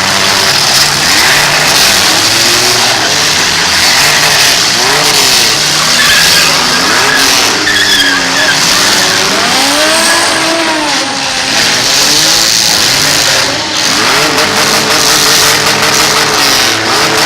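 Several demolition derby cars' engines revving up and down at once, their pitches rising and falling over each other, over a loud steady din of noise.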